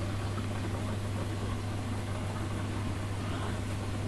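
Steady low electrical hum with an even hiss, from a reef aquarium's pumps and circulating, bubbling water.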